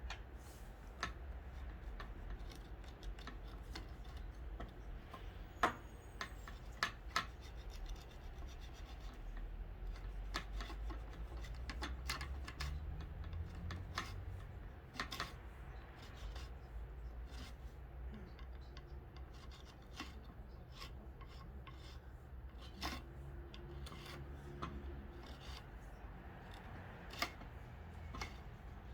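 Hands working on small fishing-rod reel seat parts: scattered clicks and taps, with rubbing and scraping between them.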